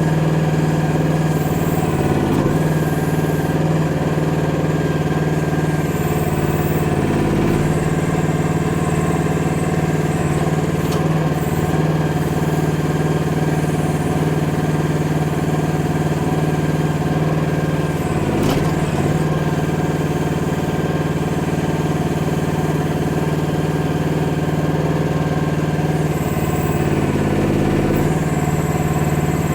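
Chinese micro excavator's engine running steadily, its note dipping briefly a few times.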